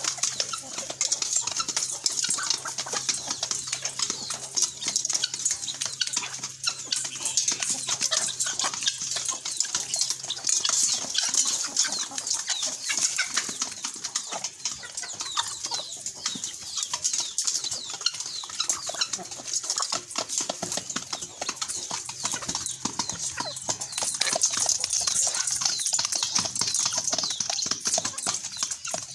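A flock of chickens feeding: a dense run of rapid pecking ticks, some against a metal feed can, with soft clucks mixed in.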